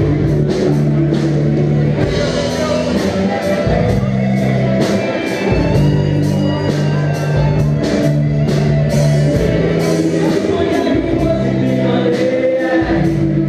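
Rock band playing live in a hall: a steady drum-kit beat, bass guitar and electric guitars, with singing over them.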